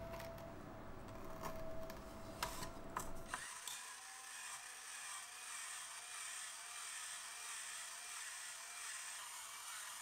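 A few clicks as a potato is fixed onto an electric rotary potato peeler. About three and a half seconds in, the peeler starts running: a steady whirr and scrape as its blade shaves the skin off the turning potato, wavering slowly and regularly.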